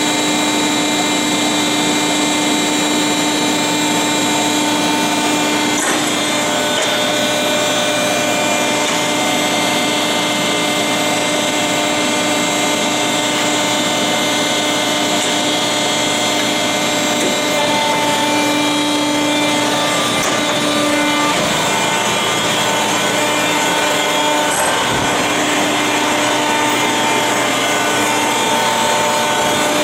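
Selco horizontal baler running under power from its 40-hp electric motor and hydraulic ram system: a steady machine hum with several held tones over a continuous rushing, grinding noise. The tones shift in pitch and strength a few times partway through.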